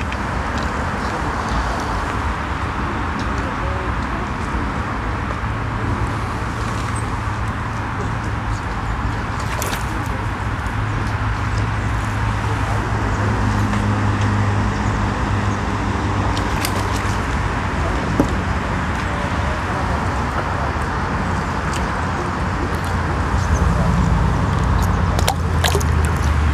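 Steady low mechanical rumble and hiss, with a low motor-like hum that swells in the middle and again near the end.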